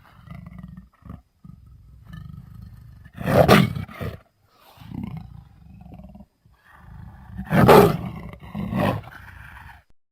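Dinosaur roar sound effects: two loud roars, one about three and a half seconds in and another about seven and a half seconds in, with quieter low rumbling calls between them.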